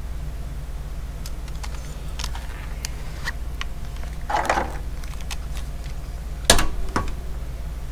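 Small plastic clicks and rattles of a wireless car charger phone mount being handled and its grip arms worked, with a brief rustle midway and two sharp knocks near the end, the first the loudest.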